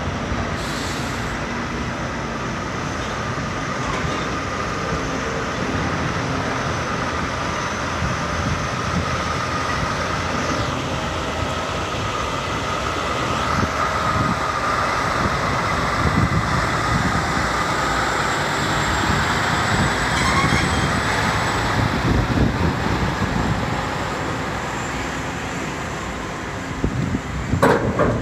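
Semi-truck pulling two container trailers as a B-train double drives slowly past: a steady diesel engine and tyre rumble that grows louder as the rig comes alongside, then eases, with a short clatter near the end.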